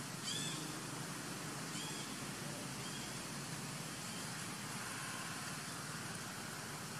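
Macaque giving a high-pitched, arching cry about a third of a second in, then a few fainter, shorter squeaks over the next few seconds, over a steady background hiss.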